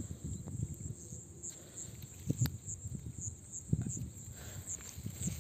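Insects chirping in a steady, evenly pulsed high trill, over low rustling and two sharper knocks about two and a half and four seconds in.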